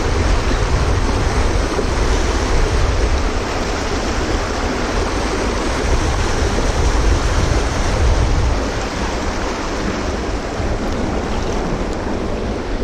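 Rushing river water churning over and around rocks, a steady loud wash, with wind rumbling on the microphone.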